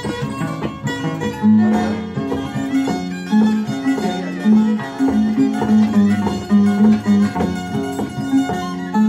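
Andean harp and violin playing a folk tune live: the harp's plucked bass notes keep a steady rhythm under a bowed violin melody.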